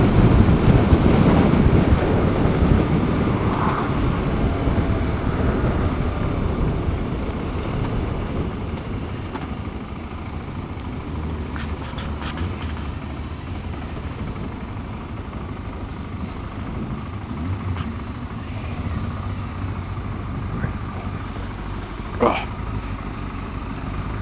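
Motorcycle running and slowing as it pulls in, the low engine and wind rumble fading over the first several seconds, then settling to a quieter steady run. A few faint clicks come about halfway through, and there is one short sharp sound near the end.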